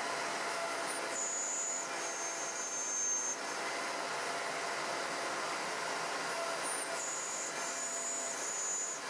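High-Z S-720/T CNC router spindle milling carbon-fibre sheet, a steady machining noise mixed with a vacuum cleaner running for dust extraction. A high whine comes in about a second in, drops out after three seconds, and returns near the end.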